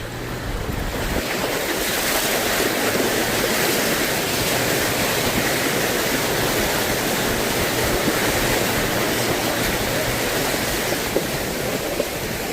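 Jeep Gladiator ploughing through a mud puddle: water spraying and sloshing against the truck in a steady rush that builds over the first couple of seconds and eases off near the end, with the engine faintly beneath.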